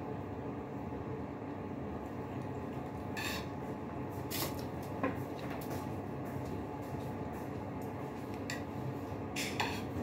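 Eating by hand from ceramic plates: a handful of short, light clicks and clinks of fingers and food against the dishes, over a steady background noise.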